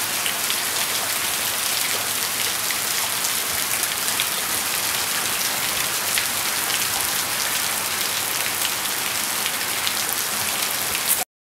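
Heavy rain pouring steadily, with many close drops ticking sharply through the hiss. It cuts off abruptly near the end.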